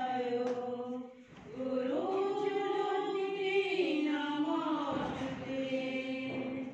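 Voices chanting a devotional prayer in unison, in long drawn-out notes that glide up and down. The chant breaks off briefly about a second in and stops near the end.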